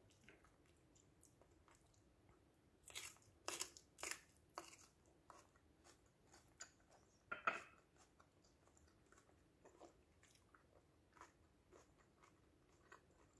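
Raw yellow bell pepper strips being bitten and chewed: a run of crisp crunches a few seconds in, another crunch about halfway, then faint chewing.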